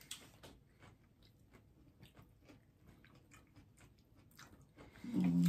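Close-miked chewing of crisp cucumber filled with chicken salad: a stream of faint, soft crunches and mouth clicks. A short hummed 'mm' from a voice stands out near the end.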